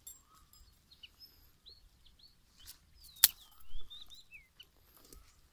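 Small birds chirping in short, quick falling and rising calls scattered throughout, with one sharp click a little past three seconds in.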